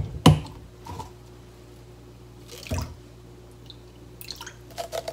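Soy sauce poured from a plastic bottle into a measuring spoon and tipped into a stainless steel bowl of dashi: a knock just after the start, another short click a little before the middle, then soft dripping and a few light metal clicks of the spoon near the end.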